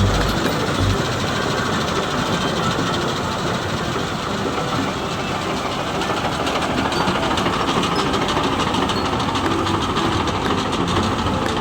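A Balkar combine harvester and a tractor-driven straw-making machine (bhusa machine) running together while harvesting wheat: a steady, dense mechanical din with a fast rattle.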